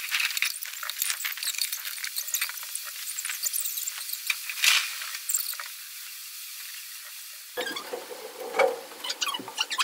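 Rain during a thunderstorm, a crackly hiss and patter full of scattered sharp clicks and taps. It sounds thin, with the low end missing until a duller layer comes in about three-quarters of the way through.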